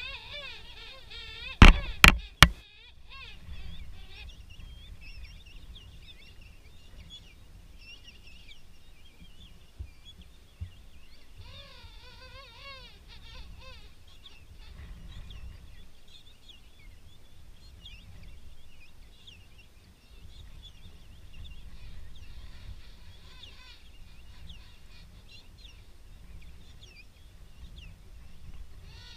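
King penguin colony calling, with many warbling calls overlapping and one nearer, louder warbling call about twelve seconds in. About two seconds in come three sharp knocks close to the microphone, the loudest sounds of all.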